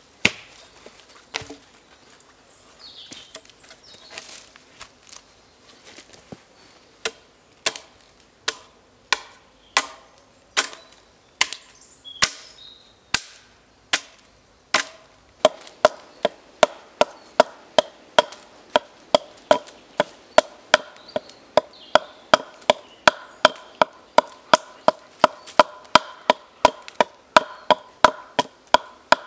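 Hatchet blows on a wooden pole. Scattered single knocks at first, then from about halfway an even run of about two to three strokes a second, each leaving a short ringing note.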